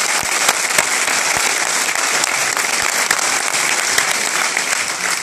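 A large audience applauding: dense, steady clapping of many hands.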